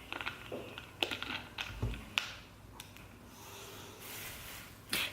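A can of LaCroix sparkling water being handled and sipped: scattered small clicks and soft handling noises, a low thump about two seconds in, and a faint hiss near the end.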